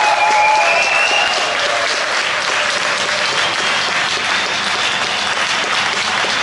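Audience applauding steadily, with one long held cheer rising slightly in pitch over the first second and a half.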